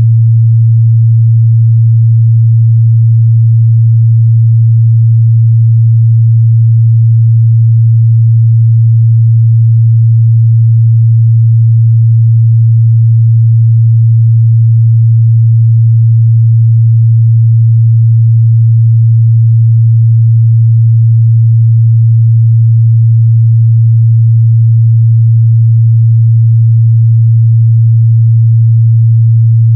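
A steady, loud 114 Hz sine-wave test tone, a single low hum held unchanged without a break.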